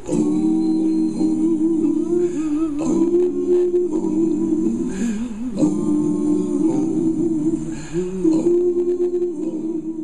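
Vocal music, a cappella-style singing in long held notes, played through an Altec Lansing iM237 portable speaker.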